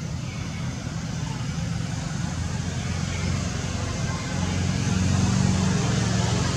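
Low, steady rumble of a motor vehicle engine running nearby, growing louder about four seconds in.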